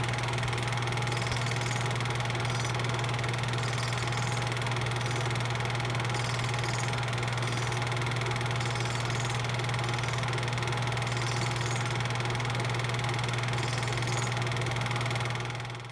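Film projector running: a steady motor hum with hiss above it, which fades out just before the end.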